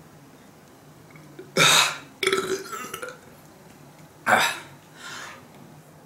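A young man's loud burps, three strong ones and a fainter fourth near the end, as he tries to burp-talk words of a script. The burps are helped along by a soft drink he has had.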